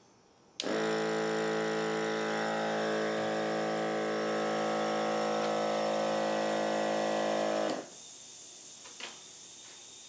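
A 12-volt cigarette-lighter air pump starts suddenly and runs with a steady buzzing hum for about seven seconds, then cuts off. A faint steady hiss follows: air leaking out of a tire patched with Flex Seal.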